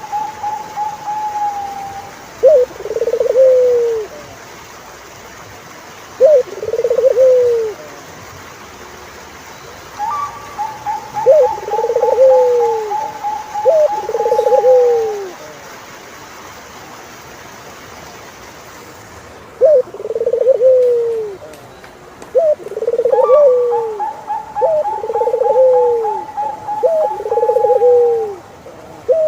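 Turtle doves cooing: low, arched coos about a second long, repeated every few seconds and sometimes in quick pairs. A higher, rapidly trilled call that lasts a few seconds sounds three times among them.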